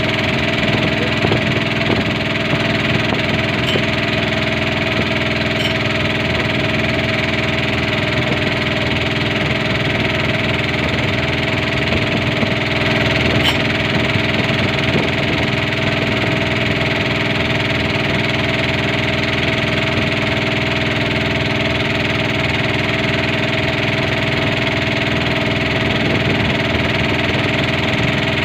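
Small boat's engine running steadily at an even speed, with no change in pitch or loudness.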